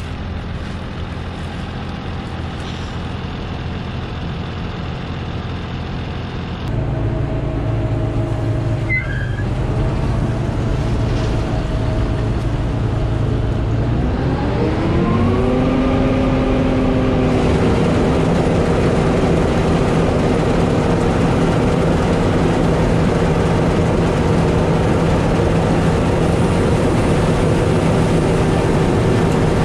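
Claas Tucano 580 combine harvester's engine running. It steps louder about seven seconds in. Around fourteen seconds its note rises over a couple of seconds and then holds steady at the higher revs, as the machine is throttled up to unload grain.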